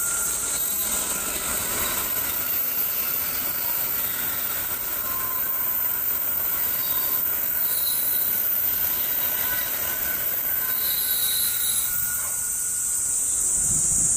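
Tokaido Shinkansen bullet train running past at speed on an elevated viaduct: a steady rushing noise with faint high whining tones over it.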